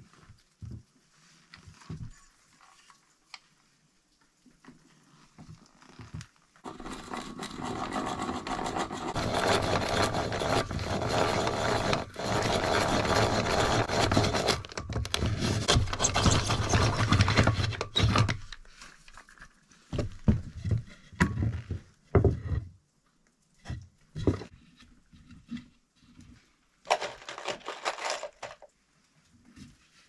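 Power drill boring through a turned wooden spindle, the bit cutting into the wood for about twelve seconds with two brief pauses. Afterward come a few knocks as the wood is handled, and another short burst of noise near the end.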